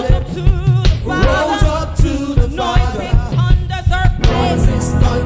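Live gospel worship music: a band with a steady drum beat and singers holding wavering, sustained notes.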